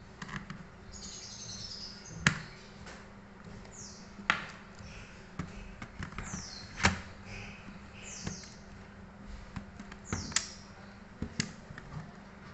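Sharp plastic clicks and taps from handling a netbook's casing as it is put back together and its battery is slid into the bay, about five distinct clicks spread out. Several short, high chirps that fall in pitch come in between.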